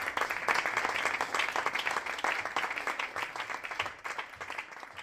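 Audience applauding after a live performance, many hands clapping, fading out near the end.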